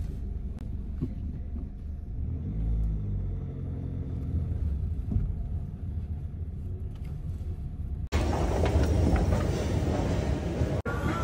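Low, steady rumble with most of its energy at the bottom. About eight seconds in it cuts abruptly to a louder, fuller sound.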